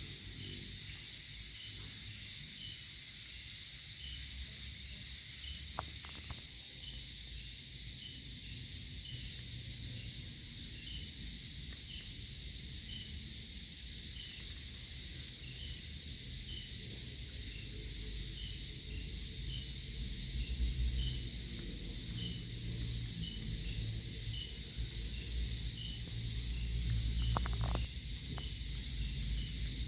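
Insects chirping in a steady chorus: a regular high chirp somewhat more than once a second and a short rapid trill every five or six seconds, over a low rumble that grows stronger in the second half.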